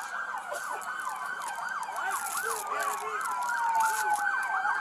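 Several police sirens sounding at once, their rising and falling wails and faster yelps overlapping in a dense tangle, with one tone gliding slowly down near the end.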